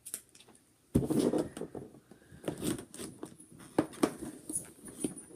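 Cardboard box being pried open with scissors: rustling and scraping of cardboard, starting about a second in, with several sharp clicks and knocks.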